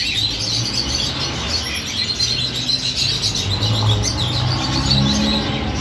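Many small caged birds chirping continuously over one another, over a low steady hum.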